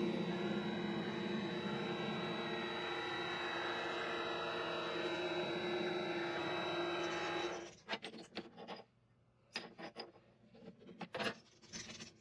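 Mini lathe running with a steady motor whine while a cutting tool faces off the end of a steel rod, a rough scraping cut. The lathe sound stops abruptly about eight seconds in, followed by a few sharp clicks and knocks of metal parts being handled.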